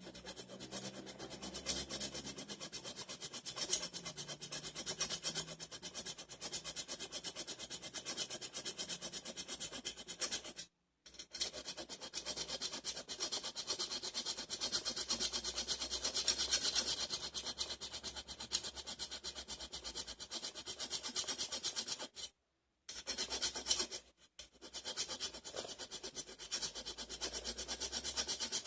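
Steel grass-cutter blade being sharpened by hand: fast, repeated rasping strokes along the edge. The sound breaks off briefly a little over a third of the way in and twice more about four-fifths of the way through.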